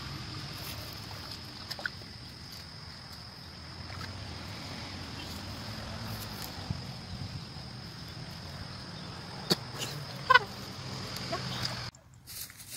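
Outdoor field ambience: a steady low rumble with a thin, steady high-pitched whine, broken by a few sharp snaps and a short falling chirp about ten seconds in. Near the end the sound drops away sharply.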